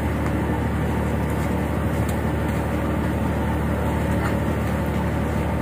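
An engine on a boat running steadily: a low, even drone that holds one pitch throughout.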